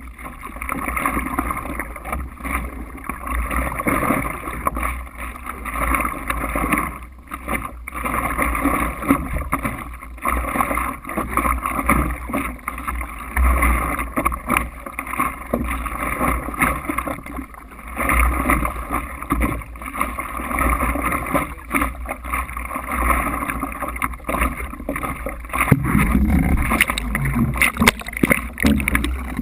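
Water sloshing and splashing against a stand-up paddleboard under paddle strokes, picked up close by a camera on the board's nose. The noise swells and falls irregularly, over a steady low rumble.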